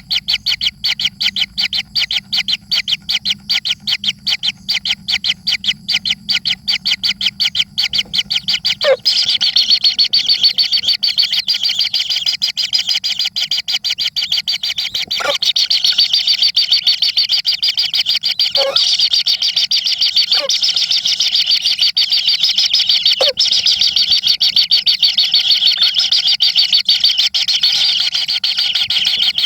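Baby birds begging with rapid, high, insistent chirps, about six a second at first, turning into a denser, continuous chatter from about nine seconds in.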